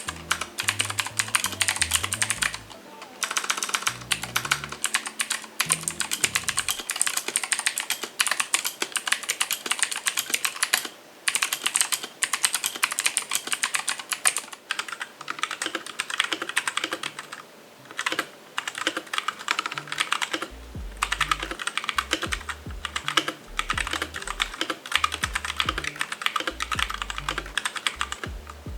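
Continuous typing on budget mechanical keyboards, many keystrokes a second with a few short pauses: a Gigaware K28 on a bare desk, then, after a brief pause about 14 seconds in, a Royal Kludge RK G68 on a desk mat.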